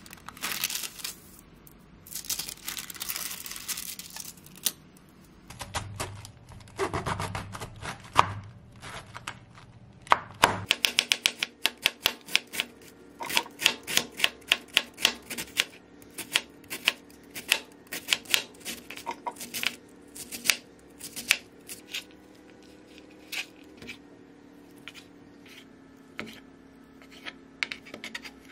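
A kitchen knife chopping cabbage on a plastic cutting board: a long run of sharp knocks, some in quick bursts, starting about ten seconds in. Before that, softer rustling and handling noises.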